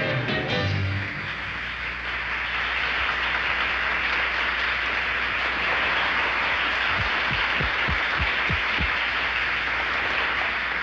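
Audience applause: steady clapping that takes over as the band's last note dies away about a second in, with a few low thumps near the end.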